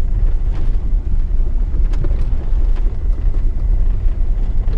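Ford F-150 pickup rolling slowly over gravel, heard from inside the cab: a steady low rumble of engine and tyres, with a few faint clicks.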